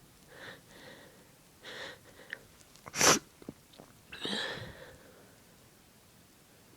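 A person sneezing: a few short catching breaths, then one loud, sharp sneeze about three seconds in, followed a second later by a shorter breathy sound.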